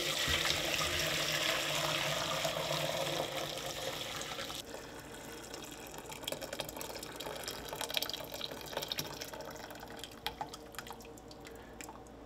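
Fish broth pouring from a pot through a small metal strainer into a pot in a sink: a full, steady pour that thins to a trickle about four and a half seconds in, then runs on as dribbles and drips.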